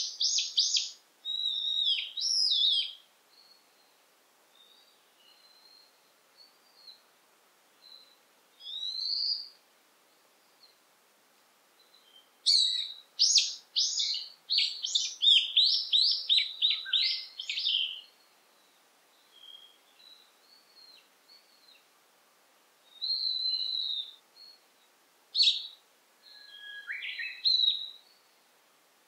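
Wild songbirds singing in a forest. Phrases of rapid, high notes come in bursts, the longest lasting about five seconds in the middle, with pauses between them in which fainter, more distant calls are heard.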